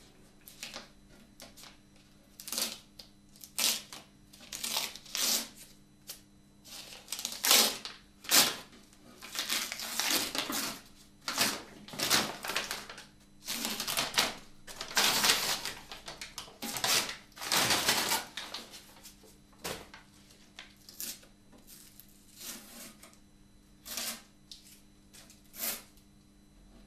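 Masking paper being crumpled and pulled off a freshly sprayed archtop guitar body, then masking tape peeled from its rim: irregular crinkling and tearing rustles, some short and some lasting a second or more.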